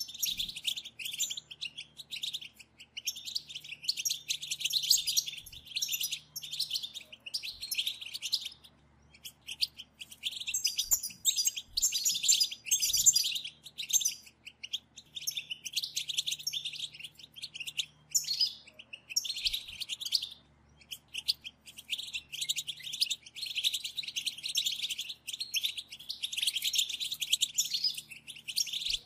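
Several European goldfinches chattering together in rapid, high twittering phrases, broken by short pauses.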